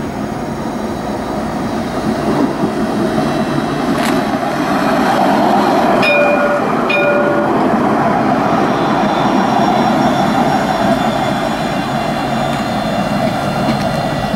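Alstom Citadis tram rolling past on its rails: a steady rumble of wheels and running gear that swells to its loudest midway and eases slightly toward the end. About six seconds in come two short pitched beeps about a second apart.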